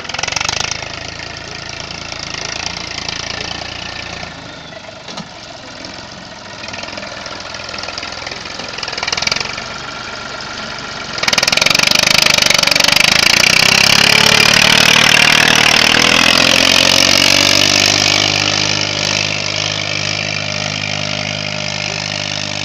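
TAFE 45 DI tractor's diesel engine running. About eleven seconds in, a loud hissing noise comes in and stays. From about sixteen seconds the engine note rises and shifts, as if under changing load.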